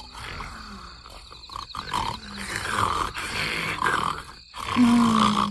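A sleeping child's cartoon snoring and sleepy grunts, several in a row, the loudest and longest near the end.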